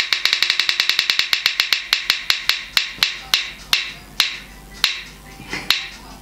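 Spin-the-wheel phone app's ticking sound effect as the wheel spins down, played through the phone's speaker. Rapid clicks, about ten a second at first, slow steadily to less than one a second by the end.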